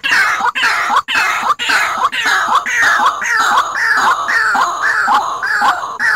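White-breasted waterhen calling: a continuous run of repeated calls, each sliding down in pitch, about two a second.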